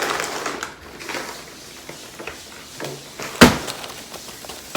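A single sharp knock about three and a half seconds in, over faint room noise.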